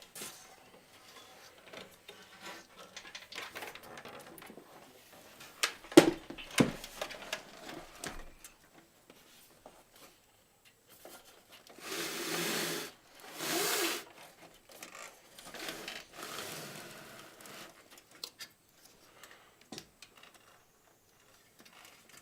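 Handling noise from a PC power supply's 24-pin cable being fed through a cable hole in the case: rubbing and scraping with scattered clicks and knocks. A sharp click comes about six seconds in, and two louder scrapes come around twelve and thirteen seconds in.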